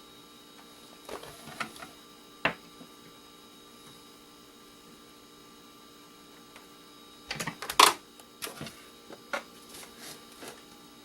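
Scattered clicks and clatters of hand tools being handled against a small plastic appliance, a few around the first two seconds and a busier run in the second half with the loudest clatter about eight seconds in, over a faint steady hum.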